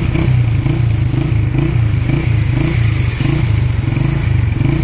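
Motorcycle engine running steadily with an even pulsing rumble while the bike rides through fast-flowing floodwater.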